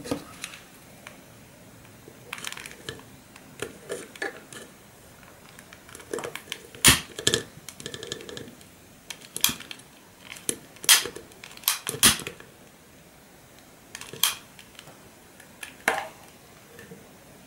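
Irregular sharp clicks and light knocks: a click-trigger utility lighter being sparked to light a tealight, and a ceramic pumpkin tealight holder being handled and set down on a hard surface. The loudest clicks come about seven seconds in and again around eleven to twelve seconds.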